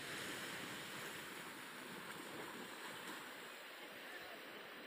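Faint, steady wash of sea surf on the beach, gradually getting a little quieter.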